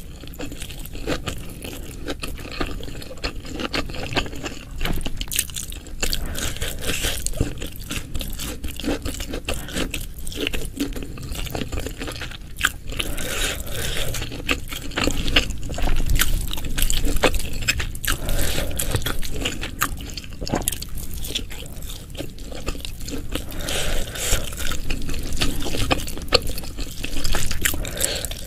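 Close-miked eating sounds for ASMR: wet chewing and mouth sounds with many small clicks throughout.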